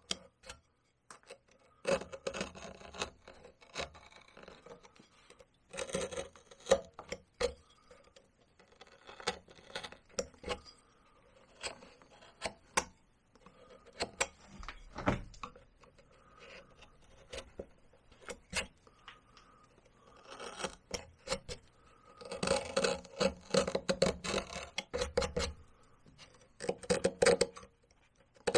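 Hand carving tools (a small detail knife, then a small gouge) cutting cottonwood bark. The cuts come in short bursts of scraping strokes with small sharp ticks as chips break away, with pauses between bursts.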